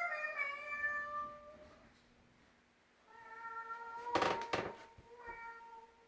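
A cat meowing: a long drawn-out meow trailing off, then after a pause two more held meows, with a brief loud scratchy noise during the second.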